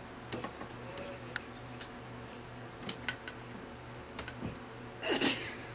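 Light clicks and rustling of a hand moving about in a wooden dresser drawer full of clothes, with a louder rustling scrape about five seconds in.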